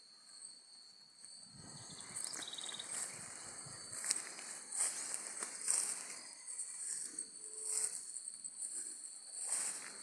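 Insects trilling steadily at a high pitch in open countryside. From about a second and a half in, irregular rustling noise rises over the trilling in uneven surges.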